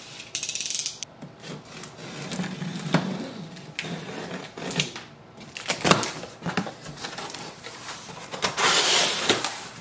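A cardboard box being opened: a short sharp tearing hiss near the start, then cardboard flaps scraping and rubbing, with a few knocks and a longer, louder scrape near the end.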